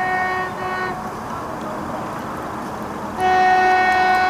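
Horn of an approaching train: two short toots back to back, then a longer, louder blast about three seconds in.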